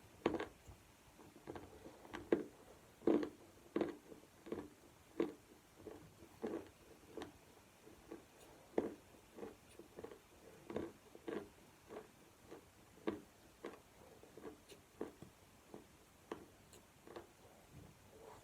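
Someone chewing chalk close to the microphone: a run of short crunches about one or two a second, with a few sharper bites among them.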